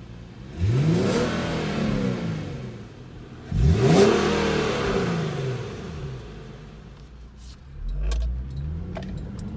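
Infiniti G37's 3.7-litre V6, warm, breathing through Mishimoto silicone intake tubing into the stock airbox, revved twice: each rev climbs quickly and falls back over about two seconds. Near the end come a low thump and a few clicks, then the engine climbs again as the car pulls away.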